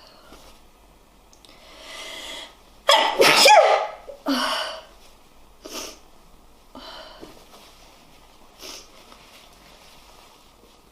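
A man with a head cold sneezing. A rising, gasping in-breath builds up, then a loud sneeze comes about three seconds in, followed at once by a shorter second burst. A few short, quieter breaths or sniffs follow.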